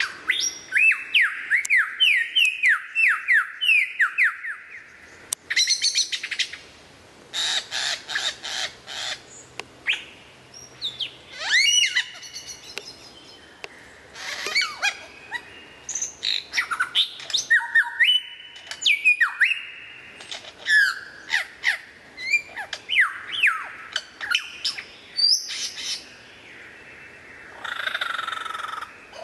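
Male superb lyrebird singing a long, varied medley of mimicked calls: a run of quick downward-sweeping whistles about three a second, then bursts of rapid clicking, loud ringing whistles and chattering notes, with a harsher rasping call near the end.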